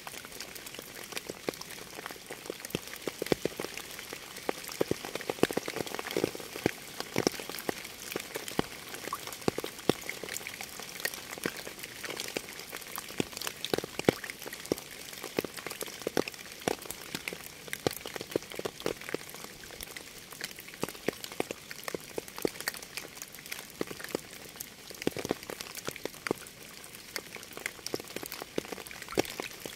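Steady rain: an even hiss with many separate drops ticking irregularly on a nearby surface.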